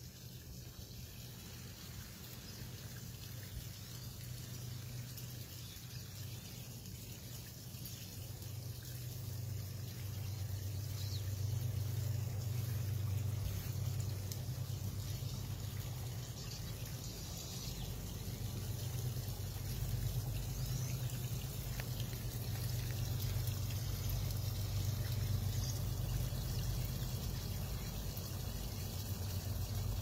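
Water trickling and pouring in a garden pond's water feature, a steady watery sound over a low rumble, growing louder over the first half.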